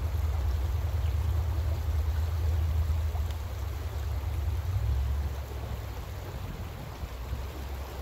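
Shallow, rocky stream flowing, water rippling steadily over and around stones. A low, uneven rumble runs underneath and eases a little about five seconds in.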